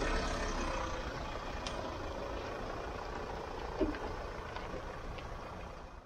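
Nissan Navara pickup's engine running as it slowly pulls away towing a car on wheel dollies, with one short thump about four seconds in. The sound fades out at the very end.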